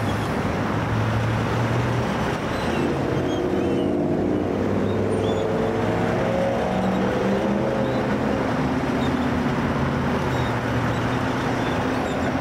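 Steady road traffic noise from cars and a bus passing on a busy road. Engine hum shifts in pitch in the middle as vehicles go by.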